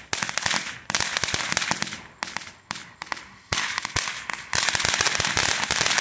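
Winda 'Dancing With Ghosts' firework fountain spraying sparks with crackling stars: rapid dense pops in surges that start sharply about every second and fade away, over a steady hiss.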